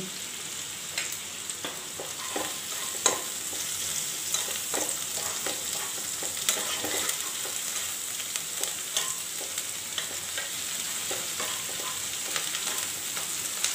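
Onion and garlic paste frying in mustard oil in a nonstick wok: a steady sizzle, with the irregular scrapes and taps of a metal spatula stirring the paste around the pan.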